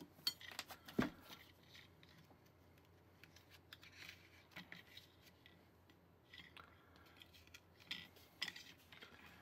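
Faint, scattered clicks and light taps of small objects being handled on a tabletop, with a sharper knock about a second in and a few quick clicks near the end.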